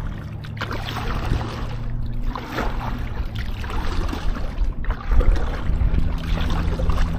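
Kayak paddle strokes splashing and water slapping the hull in a choppy lake, a series of irregular splashes over a steady rumble of wind on the microphone.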